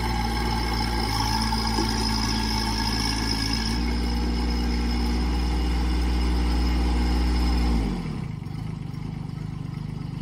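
Small diesel engine of a ZH20D mini excavator running as the machine travels on its rubber tracks to show its two-speed travel. The engine note steps up and grows louder about four seconds in, then drops sharply near eight seconds and runs on more quietly.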